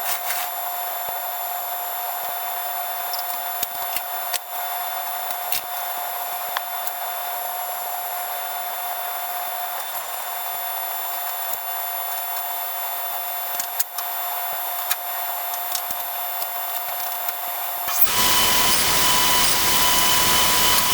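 Woodworking workshop sounds sped up: a steady whine over hiss with scattered short clicks, becoming a louder, fuller rushing noise near the end.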